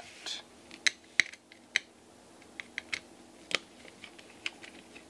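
About a dozen small, irregular clicks and taps as a screwdriver and hands work on a graphics card cooler's metal heatsink and plastic shroud, taking it apart; the sharpest come about a second in.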